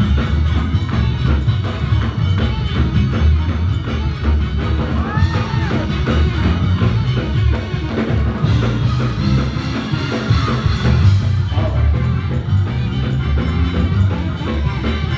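Church band music with drums and a heavy bass line, playing continuously and loudly.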